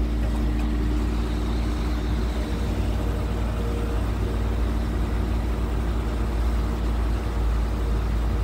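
Steady low mechanical hum and rumble with a few faint steady tones, unchanging throughout.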